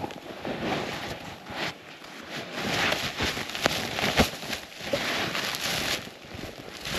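Snowshoes crunching and shuffling through deep, very cold snow, with scattered sharp crunches among a rustling hiss.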